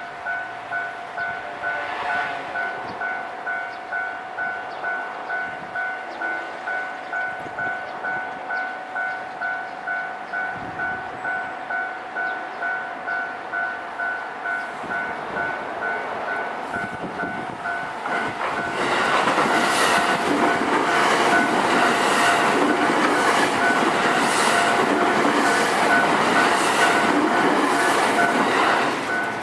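Japanese level-crossing warning bell ringing in an even, repeating two-tone clang. About two-thirds of the way in, a JR Osaka Loop Line train passes over the crossing for about ten seconds, its wheels clattering over the rail joints, and this is the loudest sound. The bell keeps ringing under it.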